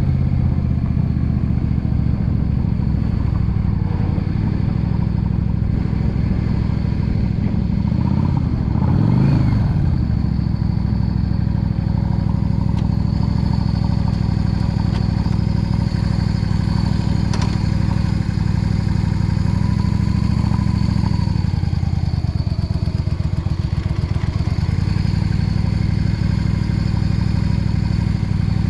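Yamaha V Star 650 Custom's air-cooled V-twin running steadily while riding. There is a brief rise and fall in pitch about nine seconds in, and the engine note drops as the bike slows a little past the twenty-second mark.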